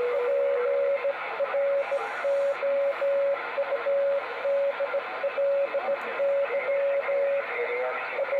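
Radio receiver hiss of band noise, with a single Morse code tone keying on and off in dots and dashes throughout; a second, lower steady tone sounds for about the first second.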